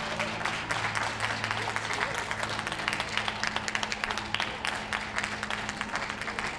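Ringside audience applauding: many hands clapping in a dense, continuous patter.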